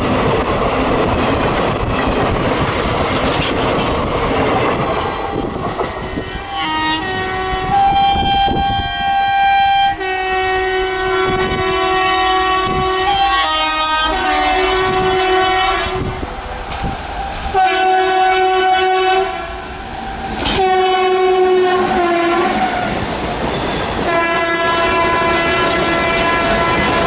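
A WAG-7 electric locomotive's horn blowing about six long blasts in quick succession, starting several seconds in, over the rumble and clatter of passing train wheels on the rail joints.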